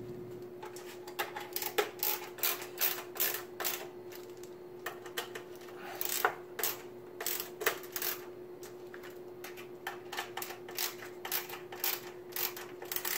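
Screwdriver tightening power supply mounting screws into a metal PC case: irregular clusters of small metallic clicks and taps, over a faint steady hum.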